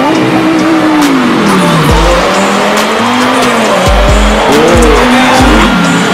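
Car engine revving. Its pitch falls at first, then swings up and down, over music with several deep bass hits in the second half.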